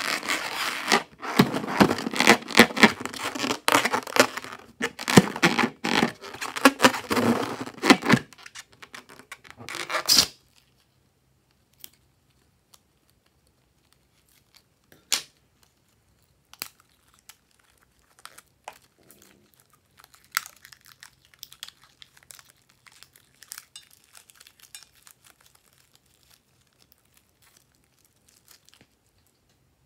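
A rubber balloon stuffed with plastic sequins being squeezed and kneaded in the hands, giving a dense run of crinkling and crackling for about ten seconds. After that come a few sharp snips and faint rustles as it is cut open and the sequins are shaken out.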